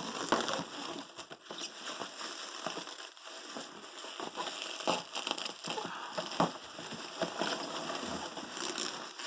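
Packing material being pulled and handled while a doll is unwrapped from its box: continuous rustling and crinkling with irregular small crackles and clicks.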